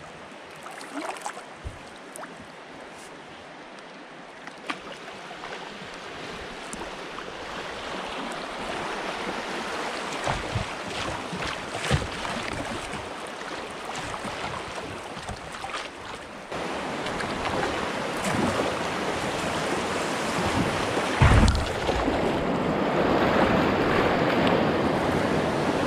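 Shallow river rapid rushing and splashing around a kayak as it runs into the whitewater, the water noise growing louder as the boat gets into the rough stretch. A few knocks and one heavy low thump sound against the hull about three-quarters of the way through.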